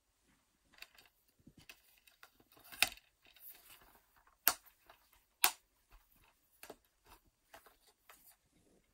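Plastic DVD cases being handled, with scattered clicks and rattles and three sharp snaps in the middle of the stretch.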